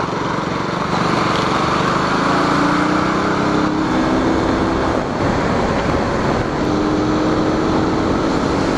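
KTM RC 200's single-cylinder engine running under way, its note climbing gently in two stretches, over a steady rushing noise of the ride.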